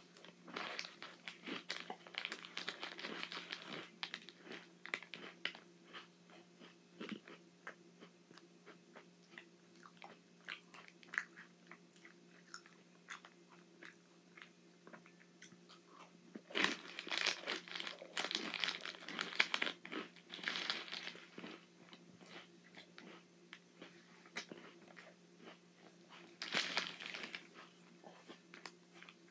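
Crunching and chewing of chocolate sandwich cookies (Oreos) close to the microphone, in bursts of loud crunching a few seconds in, through the middle and again near the end, with quieter chewing clicks between.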